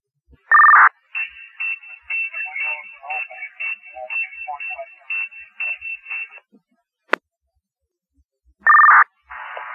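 Two-way fire radio: a short, loud electronic beep, then about five seconds of a broken-up transmission, choppy voice fragments under a steady high tone, then a click and another loud beep near the end. The entry team's report is breaking up too badly to be understood, and command asks for it to be repeated.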